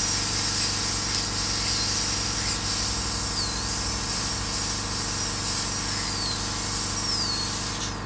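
High-speed dental drill whining as its burr cuts through a metal bell. Its pitch dips and recovers several times as it bites into the metal, and it stops near the end.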